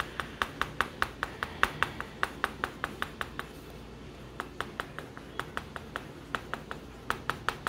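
Brown colored pencil making quick short strokes on paper laid on a clipboard, a sharp tick with each stroke at about four a second, pausing for about a second midway before going on.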